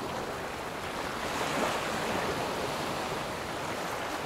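Rushing ocean-wave sound, a steady wash of water noise that swells gently and eases.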